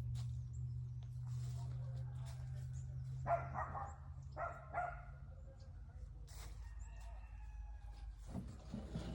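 A chicken gives a loud crow-like call, in three parts, a little over three seconds in, with fainter clucking calls and rustling around it. A steady low hum runs underneath and fades about two thirds of the way through.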